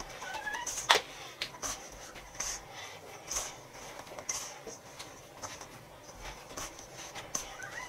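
Hands kneading and squeezing soft empanada dough in a stainless steel bowl: quiet rubbing, squishing strokes about once a second, with one sharp knock about a second in.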